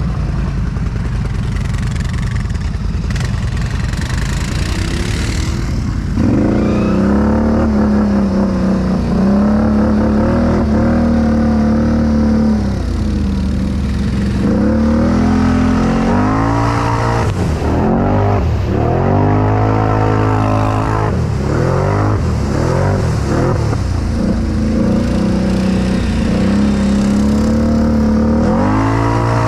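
Tuned Can-Am Outlander 650 XMR's V-twin engine through an RJWC Krossflow exhaust, running fairly steadily at first. From about six seconds in it revs up and down over and over as the throttle is worked.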